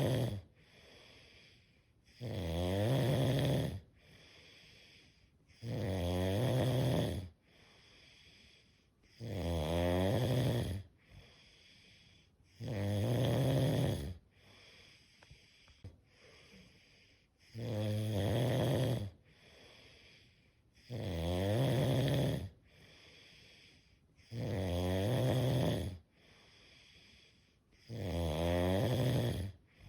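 Snoring: a loud snore of about a second and a half repeating roughly every three and a half seconds, eight or so in all, with a quieter breath between each.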